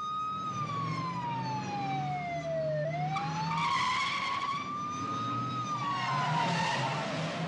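Police car siren wailing slowly: its pitch falls for nearly three seconds, rises again, holds, then falls once more, over the steady running of car engines. Louder rushes of car noise come around halfway and again near the end.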